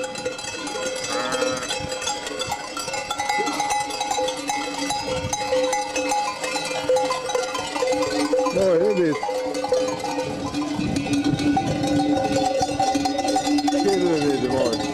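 Many sheep bells clanking and ringing together as a flock of sheep moves along the road. Sheep bleat about eight and a half seconds in and again near the end.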